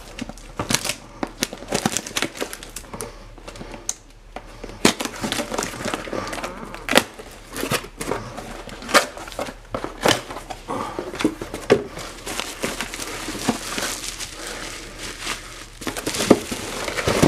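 A cardboard shipping box being opened by hand: sharp cardboard snaps and scrapes as the taped flaps are pulled back. Plastic wrap crinkles more steadily in the second half as the wrapped contents are uncovered.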